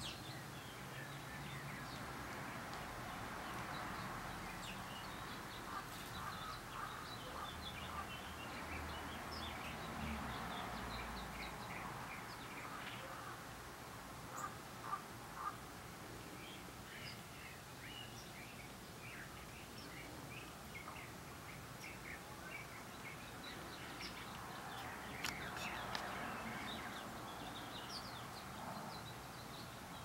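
Small songbirds chirping: many short, high chirps scattered throughout, over a steady background hiss.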